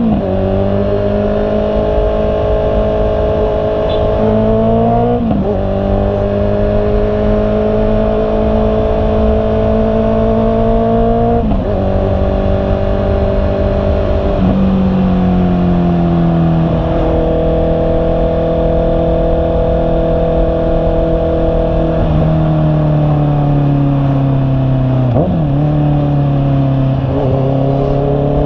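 Honda CB650R's 649 cc inline-four engine under way: the revs climb at the start, then hold fairly steady, with about seven brief dips and steps in pitch from gear changes and throttle.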